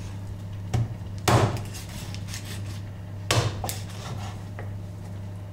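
A large kitchen knife chopping through a rabbit carcass onto a wooden cutting board: four sharp chops about a second apart, the second and third the loudest. A steady low hum runs beneath.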